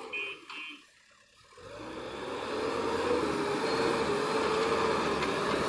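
Backhoe loader reversing alarm beeping a few times, then a brief drop-out about a second in, after which the machine's diesel engine comes in running steadily and grows louder.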